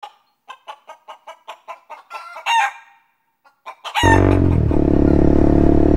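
A chicken clucking in a quick run of short calls, then giving two longer squawking calls. About four seconds in, the sound cuts abruptly to a Honda motorcycle's engine running steadily.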